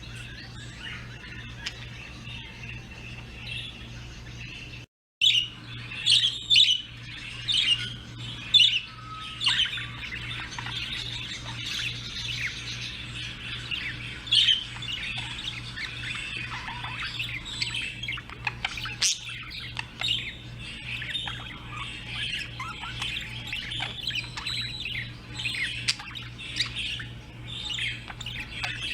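A flock of small birds chirping and squawking continuously, with many overlapping short calls. The sound cuts out for a moment about five seconds in, after which several louder chirps stand out.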